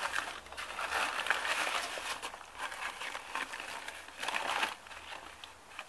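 Newspaper rustling and crinkling as it is unwrapped from around a plant, with brief louder bursts of crumpling.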